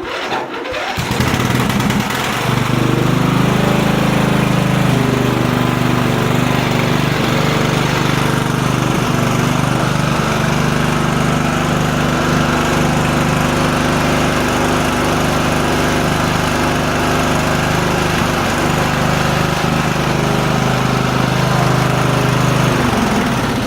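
Lawnmower engine running steadily at speed on its repaired carburetor, whose broken fuel inlet fitting has been replaced with an epoxied-on elbow.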